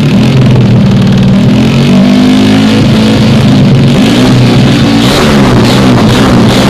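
Yamaha Jupiter Z four-stroke underbone motorcycle engine with an M4 aftermarket racing exhaust, running loud and steady for a few seconds. It is then revved repeatedly, its pitch rising and falling about twice a second.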